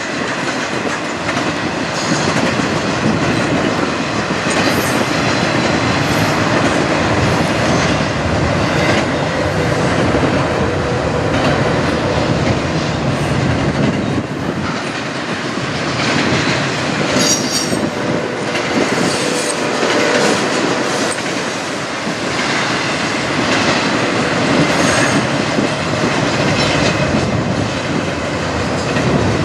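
Intermodal freight train of double-stacked containers and trailers on well cars rolling past: a steady rumble of steel wheels on the rails, with repeated clacking over rail joints and brief high wheel squeals.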